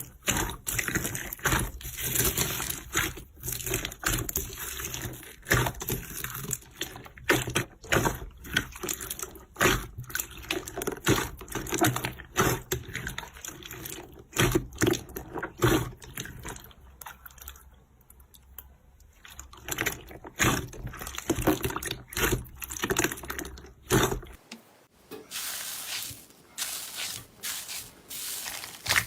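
Slime being squeezed and kneaded by hand: irregular wet squelches and sticky crackling pops. About 24 seconds in, the sound changes to sparser, drier clicking.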